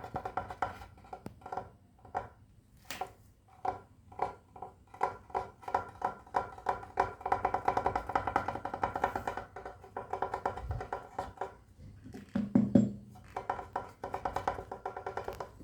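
Quick runs of tapping on a hard object that rings with a clear pitch after each tap, with short pauses between runs. One louder, duller knock comes about twelve seconds in.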